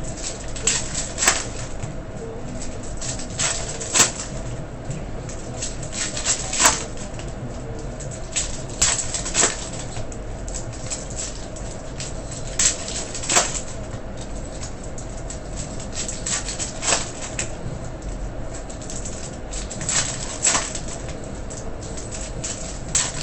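Trading card packs and cards being handled in a box break: irregular sharp crinkles, flicks and snaps of wrappers and cardboard, over a faint steady hum.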